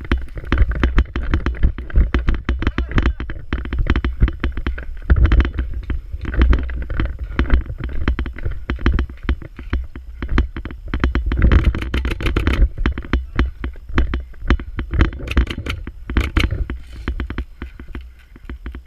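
Dense knocks and scuffs of movement over a low rumble on the microphone, with a few sharper cracks about twelve and sixteen seconds in.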